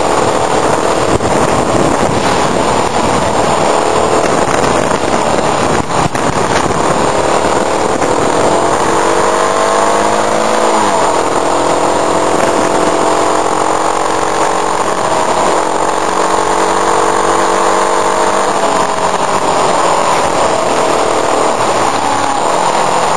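Motorcycle engine running under way, heard from a mirror-mounted camera, with wind noise rushing over the microphone. The engine pitch rises from about eight seconds in, drops sharply a few seconds later, climbs again and falls away near the end.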